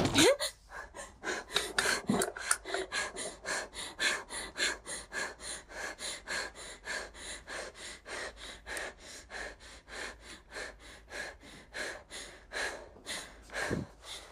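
A young woman gasps sharply, then breathes fast and hard, about three short breaths a second: frightened panting.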